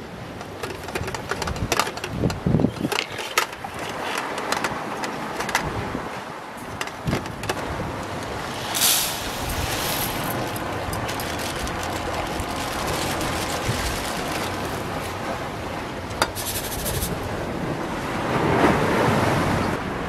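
Camping cook set handled: the zipper of its mesh pouch and clicks and knocks of metal pots, then dry rice poured into a metal camping pot in a short hissing rush about nine seconds in. Steady wind and surf run underneath.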